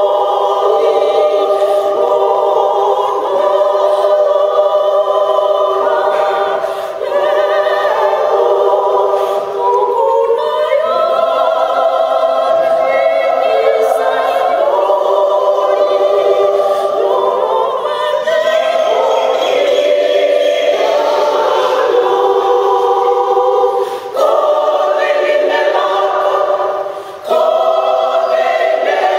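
A women's choir singing in sustained phrases without accompaniment, with a few short breaks for breath.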